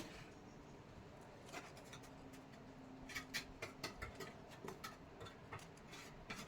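Faint, irregular light clicks and taps, most of them bunched a few seconds in.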